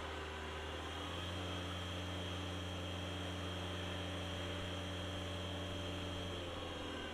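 Linde H30T LPG forklift running at a raised, steady engine speed with the hydraulic pump under load and a steady high whine as the mast lifts the forks. The pitch steps up about a second in and drops back shortly before the end.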